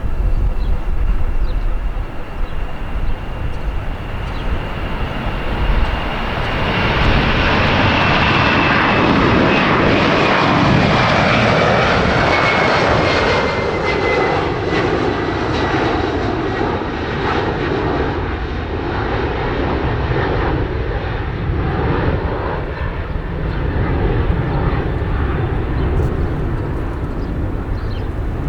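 Boeing 767 twin-engine jetliner on its takeoff run, its engine noise swelling as it passes and then easing to a lower rumble. A thin engine whine falls steadily in pitch as the aircraft goes by.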